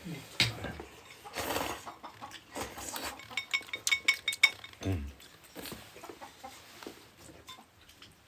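Bowls, spoons and chopsticks clinking and knocking at a meal, with a quick run of ringing clinks a few seconds in.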